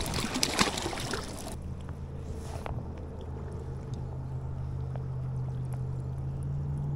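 Water sloshing and splashing as legs wade through knee-deep floodwater. About a second and a half in, this cuts off and gives way to a steady low motor hum with a few faint ticks.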